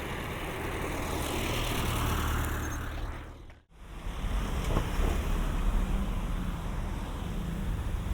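Road traffic noise recorded binaurally: a steady rumble and hiss of passing vehicles. About three and a half seconds in it fades out briefly to near silence, then returns as a deeper, heavier engine rumble.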